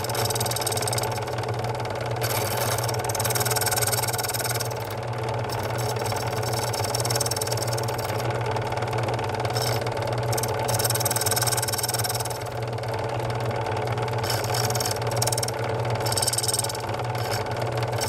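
Key-cutting machine running with a steady low hum while its rotating cutter cuts the lever steps into the bit of a barrel key. A higher metal-cutting sound comes and goes several times as the key is pressed against the cutter.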